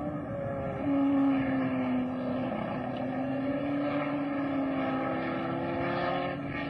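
Single-seater racing car engine running at high revs. The engine note swells about a second in, then holds steady with small rises and falls in pitch.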